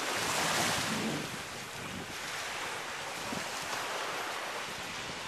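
Small waves washing onto a sandy shore, mixed with wind buffeting the microphone. The rush swells loudest about half a second in, then settles to a steadier wash.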